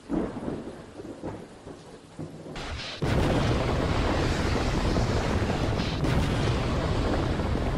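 Thunderstorm sound effect: low rumbles of thunder, then about three seconds in a sudden loud clap that runs on as a steady heavy rush like downpouring rain.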